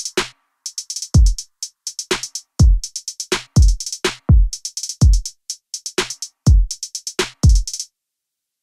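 Electronic background music with a drum machine beat: a deep, falling kick about every 0.7 s under quick hi-hat ticks. It stops shortly before the end.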